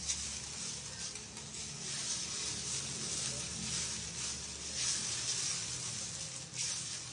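Soaked sabudana (tapioca pearls) sizzling in a hot stainless steel pan while being stirred with a wooden spatula: a steady hiss that swells and fades with the strokes.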